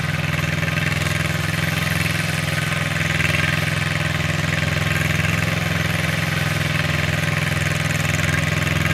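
Yanmar YM2700 small tractor's diesel engine running steadily at low speed while hauling a loaded trailer of rice sacks.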